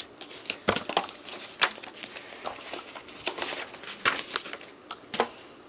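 Paper and cardboard packaging being handled: rustling with a string of light clicks and taps.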